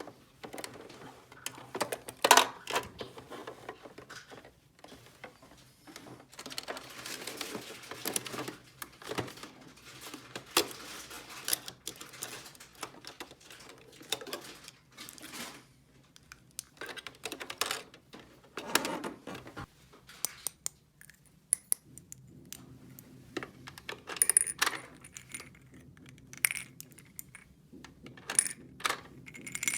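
Small hard toy pieces clicking, clinking and clattering as they are handled and set down, in irregular bursts of sharp taps.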